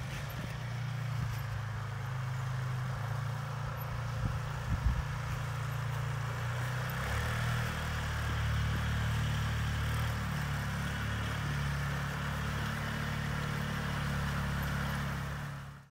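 Four-wheeler (ATV) engine running at low, steady speed; its pitch shifts about seven seconds in. A few short knocks come about four to five seconds in.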